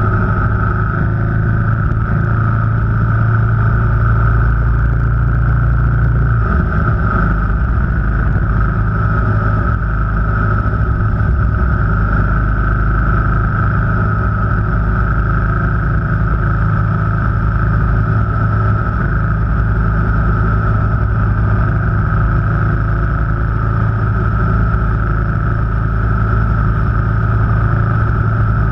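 Steady engine and road noise of a car being driven at an even speed, with a small drop in the engine note about six seconds in.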